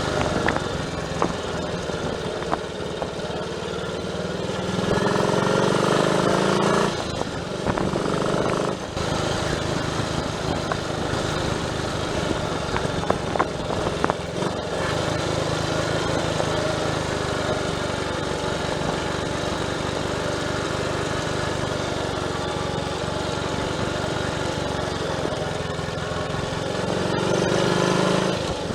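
Triumph Tiger Cub's 199 cc single-cylinder four-stroke engine running on the road, getting louder about five seconds in and again near the end, with short dips in between.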